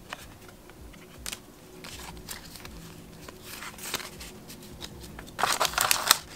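Trading cards being handled with soft rustles and clicks, then a foil booster-pack wrapper crinkling loudly near the end as the pack is opened.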